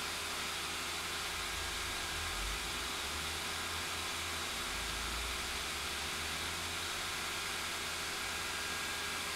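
Built-in blower fan of an inflatable Halloween decoration running steadily, an even hiss with a faint low hum.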